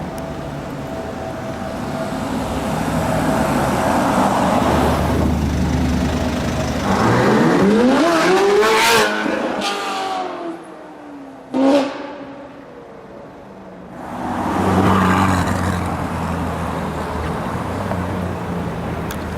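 Ferrari 458 Italia's naturally aspirated V8 through a Novitec exhaust, accelerating hard: the engine note climbs steeply to its loudest about eight seconds in and cuts off, a short sharp blip follows near twelve seconds, then another loud surge comes around fifteen seconds before it settles to a steady run.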